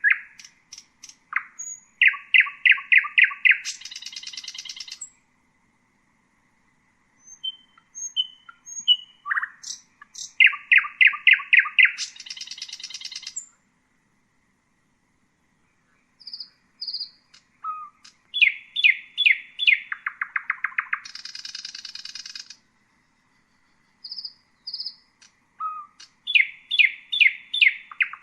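Common nightingale singing in four separate phrases with pauses of a few seconds between them. Each phrase opens with a few thin, scattered notes, builds into a fast run of loud repeated notes, and ends in a high buzzing trill.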